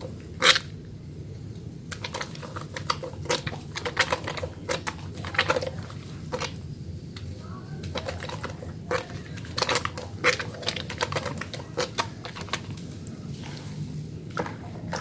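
Wet hands lathering a small bar of soap: irregular sticky clicks and squelches of foam between the palms, over a steady low hum.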